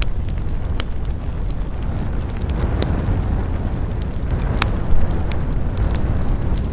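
Wood campfire burning: a steady low rumble of flames with scattered sharp crackles and pops from the burning wood, one louder pop about two-thirds of the way through.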